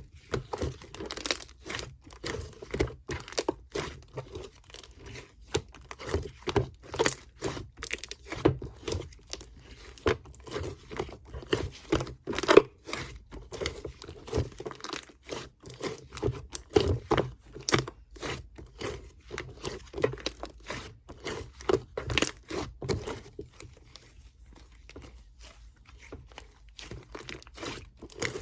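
Sherbet slime being squeezed and pressed by hand, giving a dense, irregular run of crisp crackles, pops and crinkling, several a second. It thins out for a few seconds near the end.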